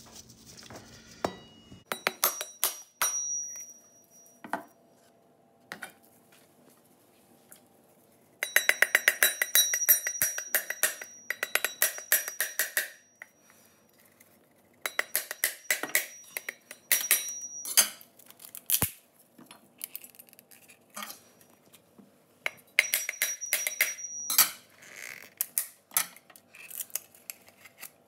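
Metal cleaver striking and chipping a coconut shell in several runs of rapid, sharp clinking strikes, each run ringing with a high metallic tone.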